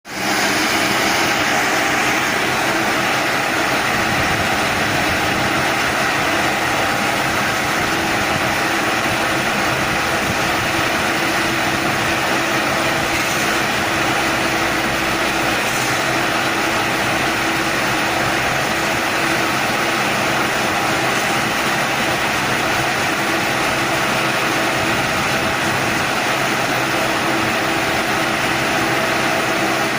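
Round baler and wrapper machine running steadily: a constant, loud mechanical noise with a steady hum.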